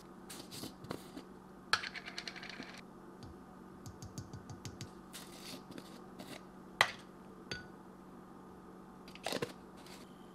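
Clicks, taps and short rattles of plastic supplement tubs, lids and a scoop as powder is spooned into a glass of water, with a sharp tap about two seconds in and another near seven seconds, over a steady low hum.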